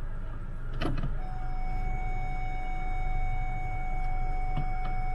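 A click of the gear lever going into reverse, then a steady electronic warning tone from the Honda Civic that holds one pitch while the car is in reverse. It cuts off just after a second click near the end as the lever leaves reverse, over a constant low engine hum.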